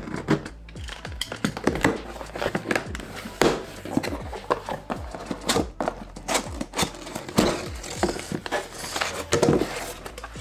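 Cardboard box being opened: packing tape slit, then the flaps pulled open and a paper sheet handled. A quick run of scrapes and rustles, with background music underneath.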